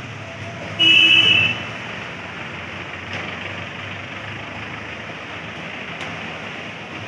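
Street ambience with a steady background rumble of traffic. About a second in, a vehicle horn sounds once, briefly, for under a second.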